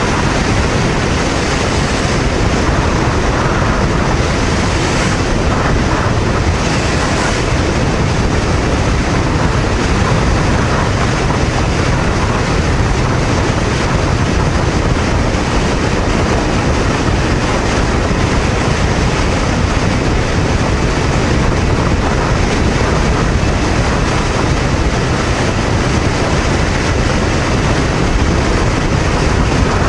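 Steady rush of wind on the microphone from a Honda VTR250 motorcycle cruising at about 110–115 km/h, with the V-twin engine and tyre and road noise under it.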